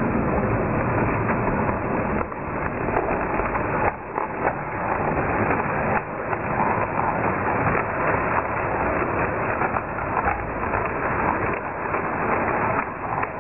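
Model railway steam locomotive and a long train of goods wagons running past close by: a steady rattling of small wheels on the track.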